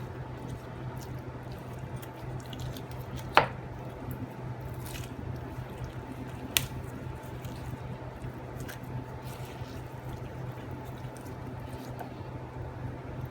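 Sharp knife slicing a roast chicken breast off the bone on a chopping board: soft wet squishing with small clicks. There is a sharp knock about three and a half seconds in and a lighter one near seven seconds, over a steady low hum.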